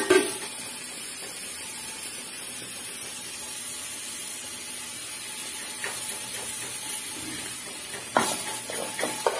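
An aluminium pot lid lifted off with a clank, then a pot of spiced water at a rolling boil, bubbling with a steady hiss. About eight seconds in come several metal knocks as rice is tipped into the pot from a metal vessel.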